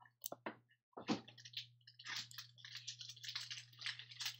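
Foil trading-card pack wrapper handled with a few light clicks, then crinkled and torn open from about a second in: an irregular crackling rustle. A faint steady low hum runs underneath.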